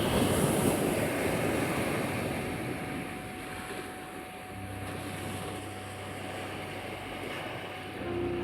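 Sea waves washing onto the shore, a surge loudest in the first two seconds, under a steady pure 741 Hz tone. About halfway in, a low steady hum joins.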